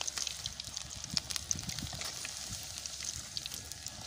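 Batter-coated banana-stem pieces deep-frying in hot oil in an iron kadai: a steady sizzle with many small crackles and pops.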